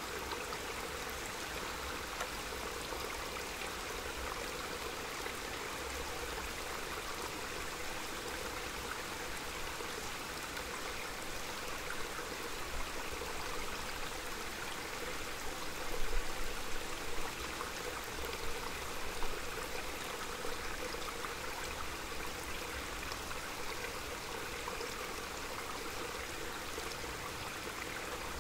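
Small mountain stream flowing steadily, a continuous rush of running water, with a few brief louder low rumbles about halfway through.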